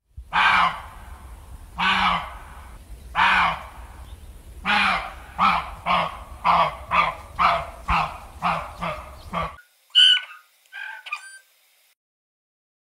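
A series of honking animal calls: three drawn-out honks, then a faster run of shorter ones, followed by a few brief high chirps.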